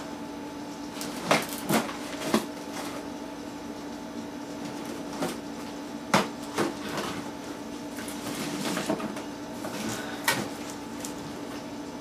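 Hands handling objects: scattered sharp knocks and clacks, about eight in all, with a stretch of rustling a little past the middle. Under them runs the steady hum of a running desktop PC.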